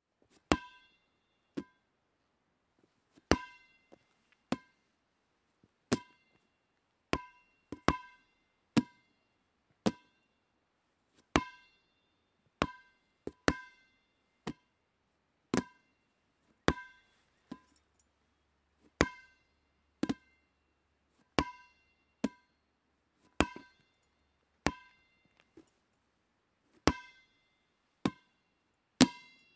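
Rubber dodgeball bouncing again and again, one sharp bounce about every second at uneven spacing, sometimes two close together, each with a short hollow ringing ping.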